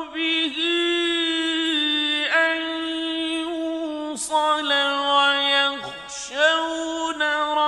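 A man's voice chanting the Quran in melodic Arabic recitation, holding long, steady notes broken by short consonants and breaths about two, four and six seconds in.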